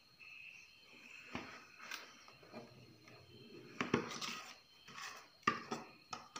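A metal spoon scraping and knocking against a steel vessel as thick idli batter is scooped and poured out, with a few sharp clinks, the loudest about four seconds in.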